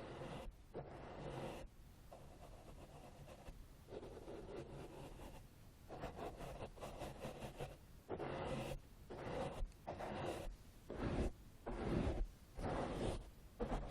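Close-up scratching and rubbing of an ear-cleaning tool against a microphone's ear, in irregular strokes about a second long with short breaks between them.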